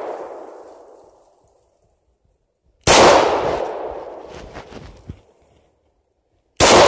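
Two 9mm pistol shots from a Glock 19X, about three and a half seconds apart, each followed by a long echo that dies away over a second or two.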